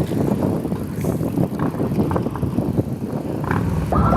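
Wind buffeting the microphone on a moving bicycle, over rattling and rolling road noise. A high steady tone starts just at the very end.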